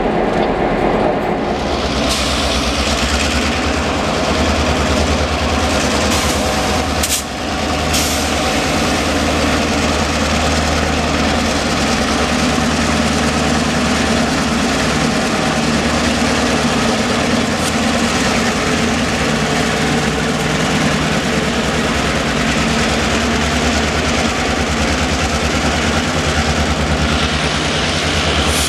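Diesel locomotives of a CN freight train running close by: a steady low engine drone over the noise of the wheels and cars on the rails, with a brief break about seven seconds in.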